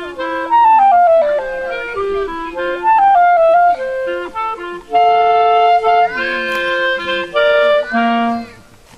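Instrumental music: a wind instrument plays a melody of quick descending runs and held notes, breaking off near the end.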